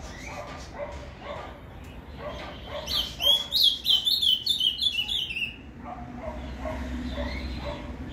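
Ultramarine grosbeak (azulão) singing one fast run of slurred, sweeping whistled notes in the Paraná song style. The run starts about three seconds in and lasts about two and a half seconds, and is the loudest sound. Fainter, lower-pitched calls repeat before and after it.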